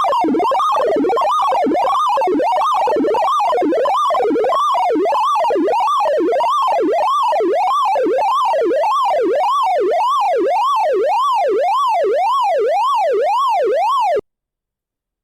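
Synthesized sorting-algorithm sonification tones from The Sound of Sorting, whose pitch follows the values of the array elements being accessed. The tones sweep smoothly up and down in repeated arcs, about two a second, siren-like, and cut off suddenly near the end.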